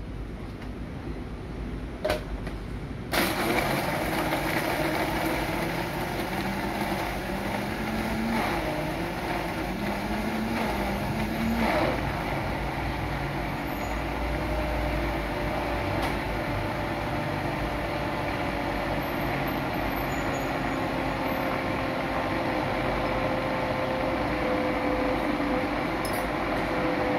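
Commercial countertop blender, its motor starting suddenly after a couple of knocks and then running steadily, churning ice and fruit into a frappe. Its pitch climbs in small steps for a few seconds, then settles into a steady whine that slowly sinks.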